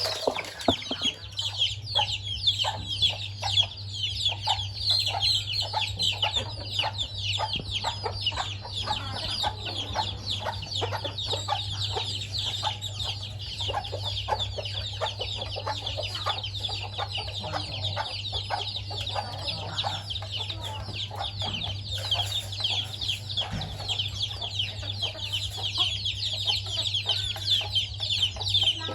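A chicken family, a hen with her chicks, clucking and peeping as they feed: a dense, unbroken stream of short, high, falling calls. A steady low hum runs underneath.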